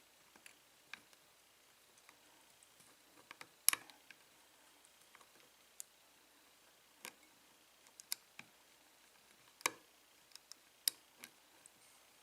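Faint, irregular small metallic clicks and ticks of a lock pick working the pin stack inside an American Lock 5200-series five-pin padlock, with a few sharper clicks about four, ten and eleven seconds in.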